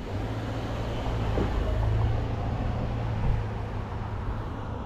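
A motor vehicle passing on the street: a low engine hum with road noise that swells about two seconds in and then fades.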